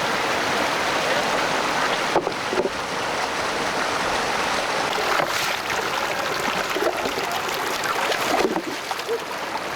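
Fast-flowing, icy creek water rushing steadily, with a few brief sharper sounds from work in the stream.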